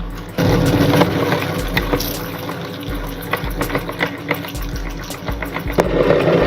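Electric meat grinder running with a steady motor hum as it crushes oysters, with many sharp crackling clicks from the shells over a wet grinding noise.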